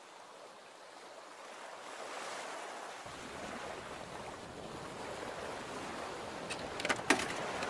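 A steady rushing outdoor hiss, growing a little louder over the first two seconds, with a few sharp clicks near the end.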